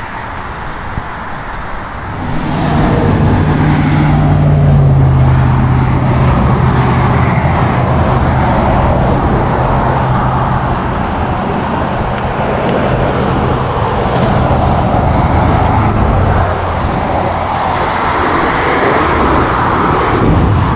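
Highway traffic passing below a footbridge: a steady rush of cars with a low hum, swelling about two seconds in and then holding.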